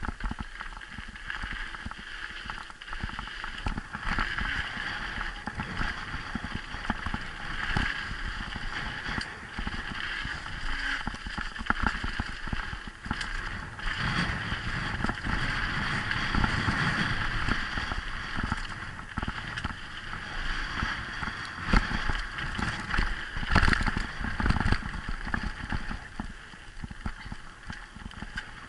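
Mountain bike descending a loose dirt and gravel trail at speed: tyres rolling and crunching over stones, with constant clattering and rattling over bumps and a few sharper knocks, the hardest about two-thirds of the way through.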